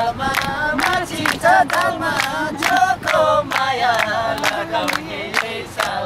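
Nepali lok dohori folk song sung a cappella by a group of voices, with steady hand clapping keeping time at about two to three claps a second.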